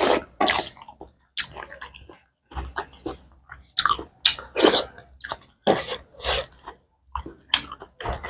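Close-miked, wet chewing and lip-smacking of someone eating rice and pork by hand, in irregular short bursts.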